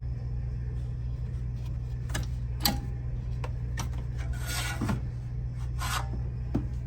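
Handling noises from a 3D-printed flexible-filament part: a few sharp clicks and a scraping rub of about a second, over a steady low hum.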